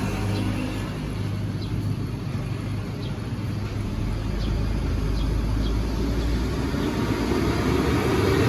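Road traffic with a heavy bus engine running as the bus pulls away, its engine tone fading in the first moment into a low rumble; another vehicle draws closer, growing louder near the end.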